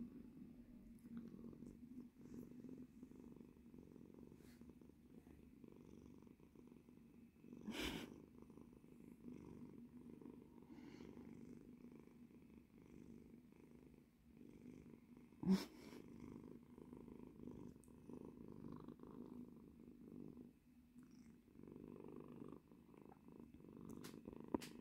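Grey tabby cat purring steadily and softly, close up. Two brief knocks cut through, about eight seconds in and a little past halfway, the second the loudest sound.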